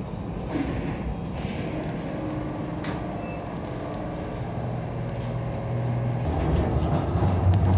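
Inside a moving tram or light-rail car: steady running noise with a few clicks and rattles early on. A low steady hum comes in about halfway, and the sound grows louder near the end.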